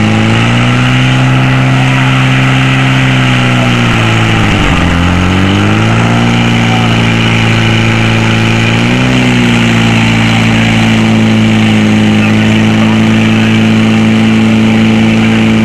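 Portable fire pump's engine running hard while it pumps water through the hoses. Its revs dip sharply about four and a half seconds in and recover, rise briefly about nine seconds in, then hold steady.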